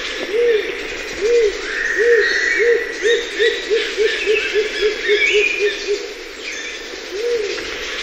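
Rose-crowned fruit dove calling: low hoots under a second apart that quicken into a run of shorter coos, about five a second, fading out about six seconds in, with slower hoots starting again near the end. Other birds whistle and chirp in the background.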